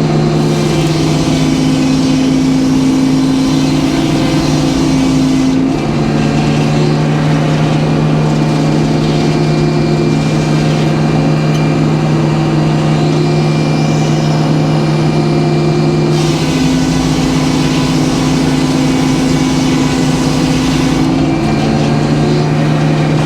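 Band sawmill's engine running steadily while the blade saws a board off a white oak log. The engine note changes twice: an extra tone comes in about a second in and again around sixteen seconds in.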